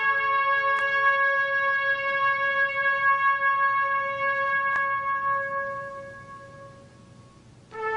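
Background music: a wind instrument holds one long, steady note that fades away over the last couple of seconds, and a new note begins right at the end.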